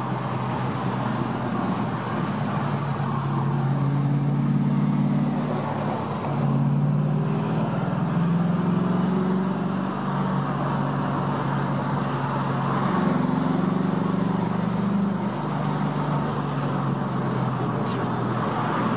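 Ford Mustang's 4.6-litre V8 pulling through the gears with its electronically valved exhaust open, heard from inside the cabin. The engine note rises and falls as the revs change, over steady road noise.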